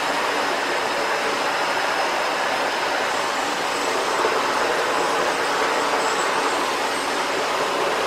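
Sebo Felix vacuum cleaner running steadily: a rush of air with a faint high motor whine.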